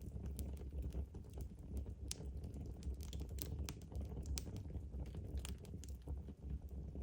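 Wood fire burning in a fireplace, crackling with irregular sharp pops over a low steady rumble of the flames.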